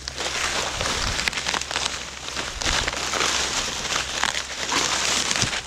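Dry corn leaves and stalks rustling and crackling as they are handled and trodden.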